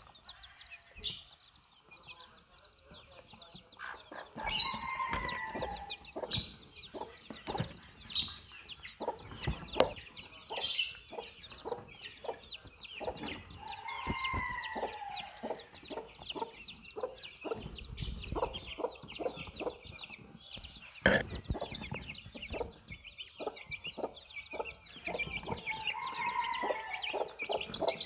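A brood of baby chicks peeping constantly while chickens cluck. Three times, about 5, 14 and 26 seconds in, a chicken gives a longer drawn-out call, and there are sharp knocks now and then.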